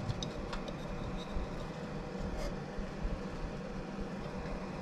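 A few faint clicks and handling noises as a rubber drive belt is worked by hand onto the motor pulley of an unplugged rotary rock tumbler, over a steady low hum.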